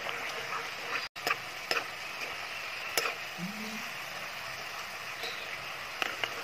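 Cornflour-coated bitter gourd slices deep-frying in hot oil in a wok, a steady sizzle. A metal ladle stirring them clicks against the wok a few times. The sound cuts out for an instant about a second in.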